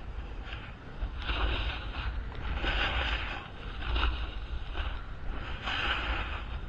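Wind rumbling on the microphone during a fast run down a groomed ski trail, with the hiss of edges scraping across the snow swelling in surges about a second in, around three seconds and near six seconds as the rider turns.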